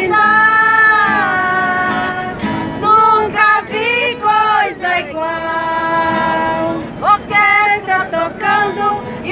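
A group of women singing a Portuguese gospel hymn together, with several long held notes.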